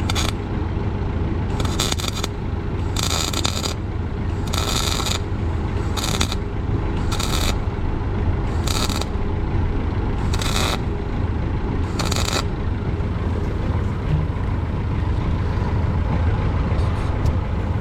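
Short bursts of arc-welding crackle, about nine of them, each lasting under a second: tack welds being laid on a manure spreader chain pin to keep it from coming apart. An engine runs steadily underneath.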